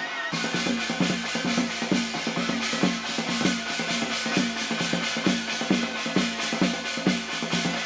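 Korean shaman ritual (gut) music: a steady, fast beat on drum and hand cymbals, typical of the janggu hourglass drum and jegeum cymbals that accompany Hwanghae-do gut.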